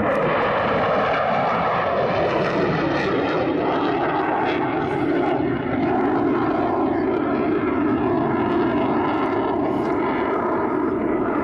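Eurofighter Typhoon jet fighter's twin turbofan engines, a loud steady jet noise with a faint shifting pitch pattern as the aircraft flies past.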